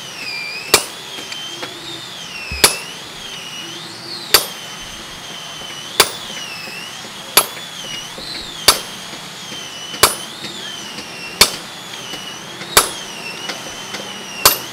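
Hand hammer striking a hot leaf-spring steel cleaver blade on a steel anvil block, ringing blows about every second and a half, about ten in all. A high whine that wavers up and down in pitch runs underneath.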